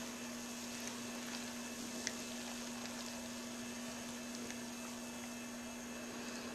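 Faint fizzing crackle of small bubbles popping on the surface of fermenting blueberry wine must, the sign of active, though slowing, primary fermentation. A steady low hum runs underneath.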